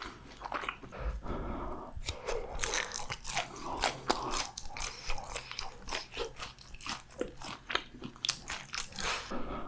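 Close-miked biting, crunching and chewing of crispy fried food, with many sharp crunches in quick, irregular succession.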